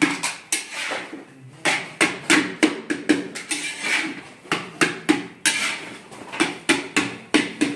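Metal spatula clanking and scraping against a large iron kadhai while stirring spiced potato samosa filling, in quick, irregular strokes of about two to four a second.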